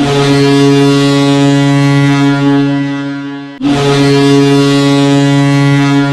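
SKA Saint Petersburg's arena goal horn blowing two long, loud blasts of one deep, steady tone. The second blast starts about three and a half seconds in.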